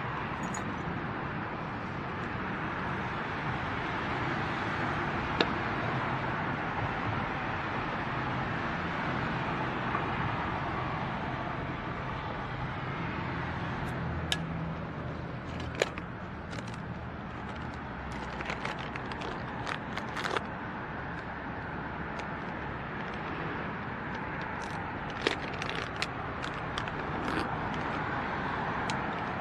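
Steady road traffic noise from cars crossing the overpass. From about halfway through, scattered sharp ticks and clicks break through it.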